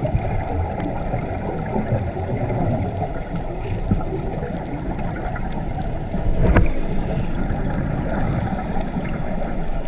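Steady rushing of wind and water, heard aboard a boat, with a single thump about six and a half seconds in.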